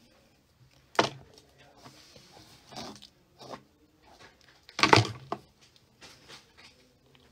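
Two sharp knocks, about a second in and again near five seconds, the second the louder, with short scratchy rustles between them, as hands and a plastic comb work through hair close to the microphone.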